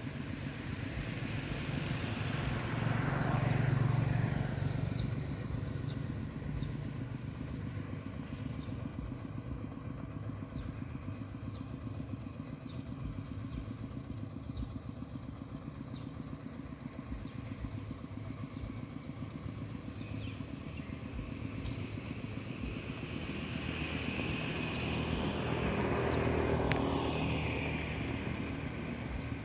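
A small motor vehicle engine, such as a motorcycle's, running steadily, growing louder twice: about three to four seconds in and again near the end.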